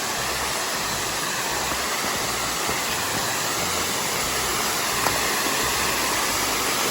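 Waterfall splashing steadily at low flow, a constant rushing hiss that grows slightly louder.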